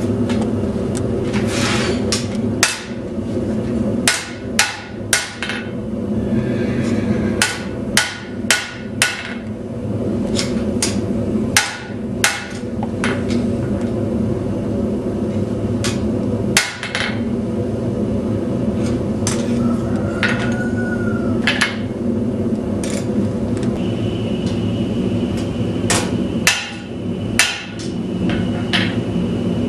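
Hammer tapping a knife blade on a steel anvil in irregular single strikes and short runs: gentle hammering to straighten the blade at a dull-red heat. Under the strikes, a gas forge burner runs with a steady rush.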